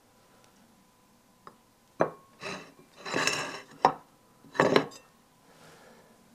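China plate and bowls clinking and scraping on a wooden table as bait balls are handled and set down: about two seconds in, a few sharp clicks and short rattles over about three seconds.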